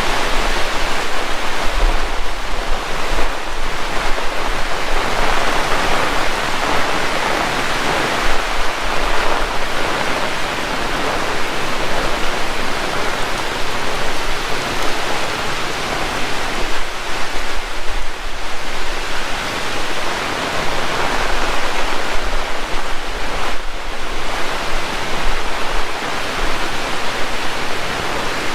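Heavy rain pouring steadily, a loud dense hiss that swells and eases slightly.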